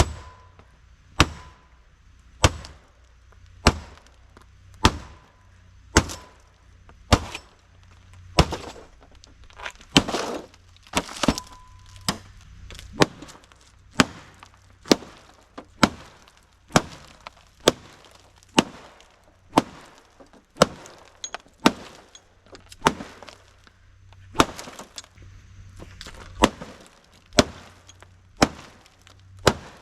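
An LG flat-screen TV struck over and over in a steady rhythm, about one heavy blow every second or so, with breaking and cracking as it is smashed.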